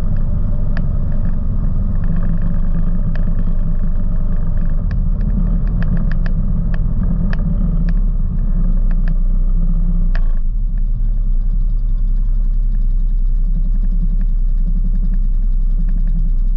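ATV engine running as it rides along a gravel trail, with scattered sharp clicks of gravel. About ten seconds in it eases off and settles to a steadier, lower running sound as the machine comes to a stop.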